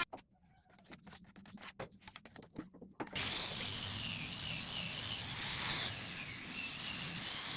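Rapid ratcheting clicks from a woodworking tool for about three seconds, then a louder steady rasping noise with a wavering whine.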